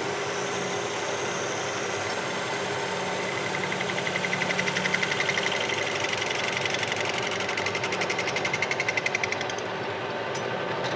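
Metal lathe running while a boring bar cuts inside a cast iron casting, a light cut that opens up the bore. From about three seconds in the cutting noise pulses rapidly, then eases off shortly before the end.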